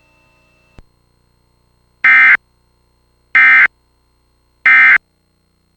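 Emergency Alert System end-of-message tones: three short, loud bursts of SAME digital data warble, about 1.3 seconds apart. They signal that the alert broadcast is over.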